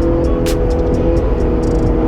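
Background music playing over a car engine running steadily, its pitch drifting slowly.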